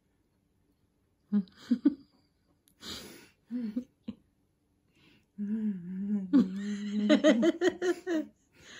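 A girl's short vocal sounds and a breath, then a long held hum that breaks into giggling laughter near the end.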